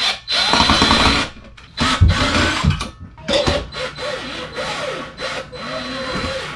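Power drill/driver running in several stop-start runs with a high motor whine, backing out the screws of an old ceiling fan fixture.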